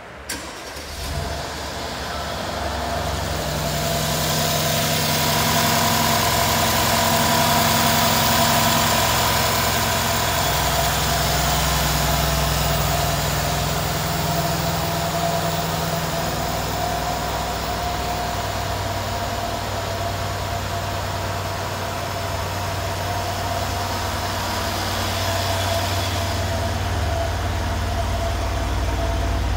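A 2013 Mercedes-Benz SL550's engine idling steadily, with a held whine over it, growing louder over the first few seconds.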